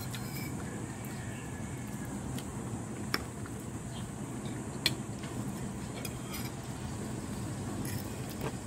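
Metal fork scraping and clinking against a ceramic plate while twirling pasta: a few sharp clinks, the loudest about three and five seconds in, over a steady low background rumble.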